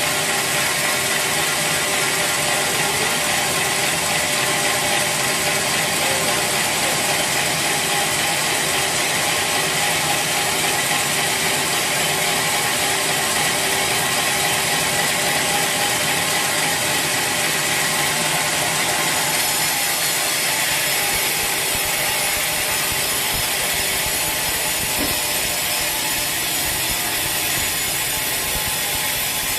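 Sawmill machinery running steadily: a dense mechanical noise with constant whining tones throughout. The high end of the sound shifts slightly about twenty seconds in.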